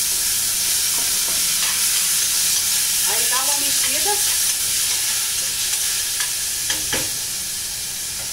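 Cooked carrot sizzling as it frys in hot lard with browned onion in a pan on a gas stove: a steady hiss that eases slightly toward the end. A spoon stirs it, with a few light knocks against the pan.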